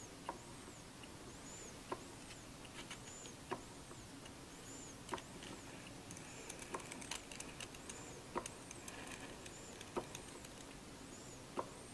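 Model Benson vertical steam engine running slowly: a sharp tick about every one and a half seconds, with faint high squeaks repeating between the ticks.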